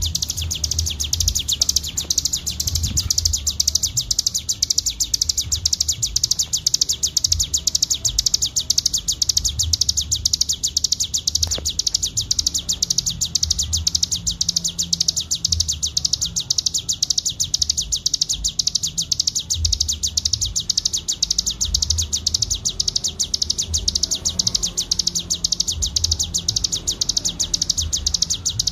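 A cigun songbird singing its 'ngebren' song: one long, unbroken, very rapid high-pitched trill. Under it runs a low, uneven rumble.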